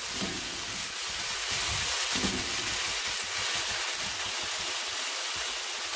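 Spiced onion-tomato masala sizzling in hot oil in a wok: a steady frying hiss.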